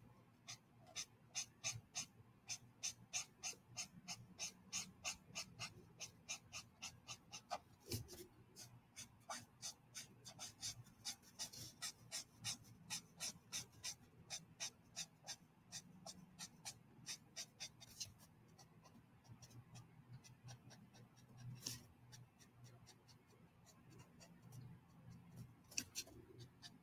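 Copic marker tip stroking across drawing paper in quick back-and-forth colouring strokes, about three a second, thinning out to scattered strokes about two-thirds of the way through.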